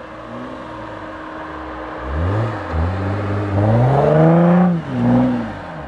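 2012 Jeep Wrangler Rubicon's Pentastar V6 through a Magnaflow exhaust, revving under load as the Jeep powers up a sand dune. The engine note climbs from about two seconds in to a loud peak around four and a half seconds, dips briefly, swells once more and then falls away.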